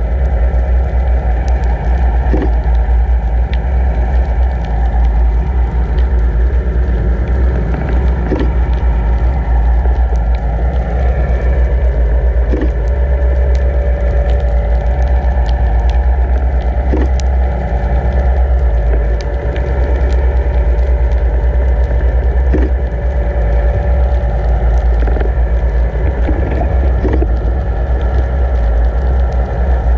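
Steady underwater rumble and hum from the towing boat's motor, heard through the water, with water rushing past the towed camera housing. Scattered sharp clicks and crackles run through it.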